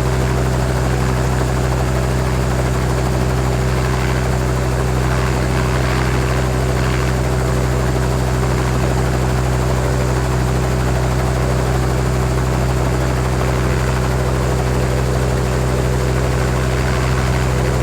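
Helicopter heard from outside, its engine and rotor running steadily at a constant pitch and level.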